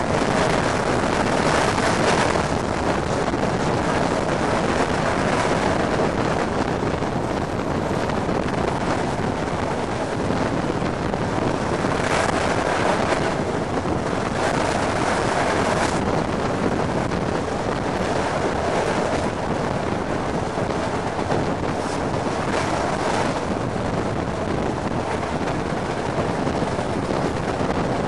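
Train running at speed, heard from an open window: a steady rush of wind buffeting the microphone over the train's running noise.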